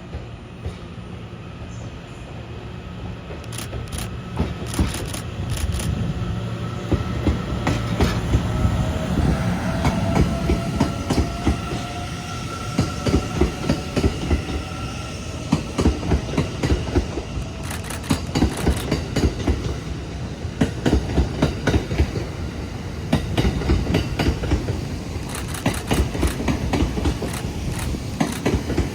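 The TRAIN SUITE Shiki-shima (JR East E001 series) pulls out and passes, its wheels clattering in quick runs of clicks over rail joints. A faint rising whine runs through the middle.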